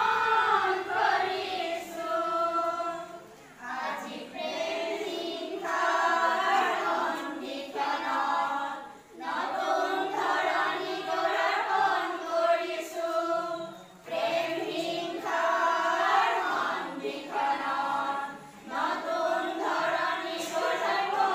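A group of women singing a song together in unison, in phrases of about five seconds with short breaks between them.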